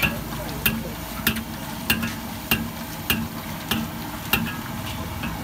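Sweet potato balls deep-frying in a steel wok of hot oil, sizzling steadily, while a long steel ladle stirs them and clinks against the wok in a regular rhythm, roughly once every two-thirds of a second.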